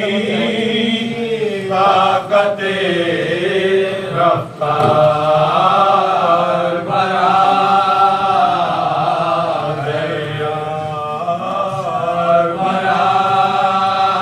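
Men chanting a marsiya, an Urdu mourning elegy, in a slow lament with long held, bending notes.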